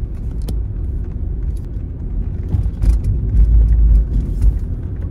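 Road and engine rumble inside a moving car's cabin, steady and low, swelling louder for about a second and a half around three seconds in.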